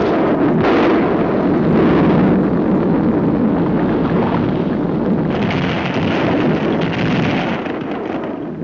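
Sound effect of a volcanic eruption on an old cartoon soundtrack: a continuous heavy rumble of blasts and crashing rock, easing slightly near the end.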